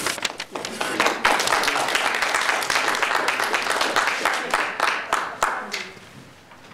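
A small audience applauding, the clapping dying away near the end.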